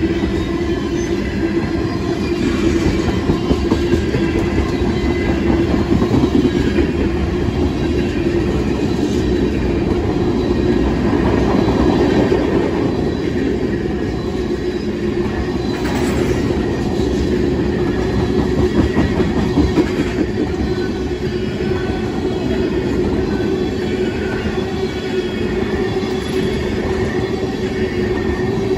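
Freight train tank cars rolling past at close range: a steady, loud rumble of steel wheels on the rails, with occasional clicks from the wheels.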